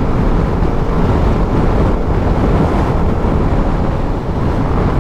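Wind rushing over the microphone of a BMW G310 GS single-cylinder motorcycle riding at road speed, with engine and road noise underneath as a loud, steady rush.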